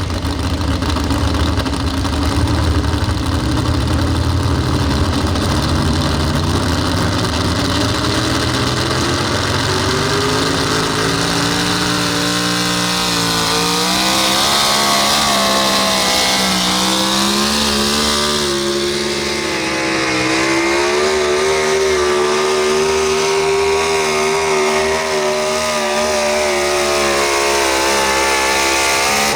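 Pro Stock 4x4 pulling truck's engine running at high revs under full load during a pull, its pitch slowly climbing, with a brief dip about halfway through before it climbs again and holds.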